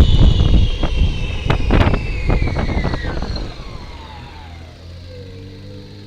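Wind and road noise from a moving bicycle, with a few knocks and rattles, fading as the bike slows. Through it a thin whine falls steadily in pitch from high to low over several seconds.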